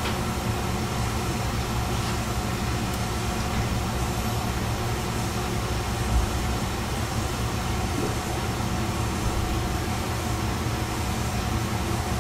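Chizu Express HOT3500 diesel railcar running along the line, heard from inside the car: a steady engine drone with wheel-and-rail rumble, and a single low thump about six seconds in.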